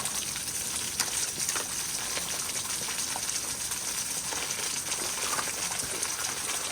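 Waterfall pouring and splashing onto rock: a steady rush of water with many small scattered splashes.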